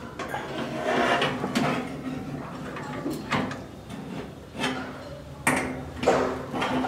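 Metal rotisserie spit being fitted into an electric oven's rotisserie supports: a handful of short metallic clicks and knocks, the strongest two about five and a half and six seconds in.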